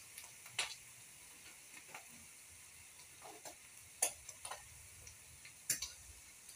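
Small fish frying in oil in a pan: a faint steady sizzle broken by several sharp pops and crackles.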